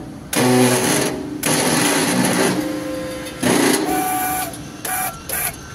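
Wheel hub being pressed into a replacement wheel bearing in a shop press: loud metal-on-metal creaks and squeals as the hub shaft is forced through the bearing, coming in several spurts with short pauses, the last two brief ones near the end.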